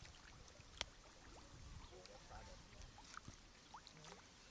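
Near silence: faint background with a few soft ticks, the sharpest about a second in.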